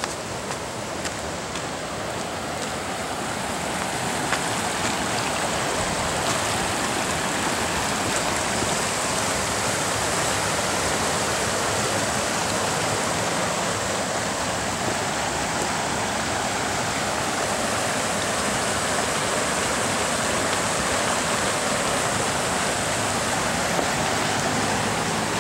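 Rushing water of a stream flowing through a concrete-lined channel, a steady hiss that swells over the first few seconds and then holds.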